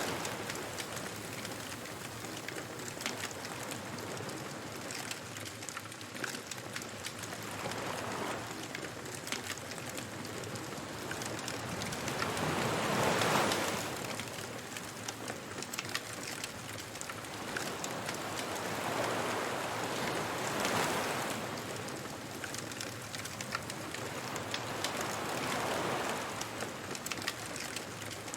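Beach bonfire ambience: surf washing in and drawing back in slow swells every several seconds, over a steady fine crackle of burning wood.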